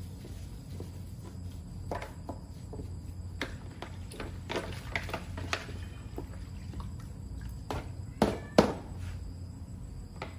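Workshop handling sounds: scattered clicks and knocks of parts or tools being handled, with two louder knocks close together near the end, over a steady low hum.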